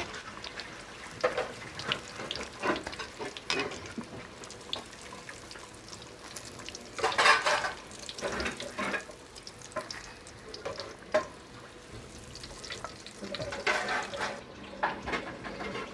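Oil sizzling and crackling in a karahi as breaded chicken-and-potato patties deep-fry, with clicks of metal tongs against the pan as the patties are turned and lifted out. A louder burst of sizzle comes about seven seconds in.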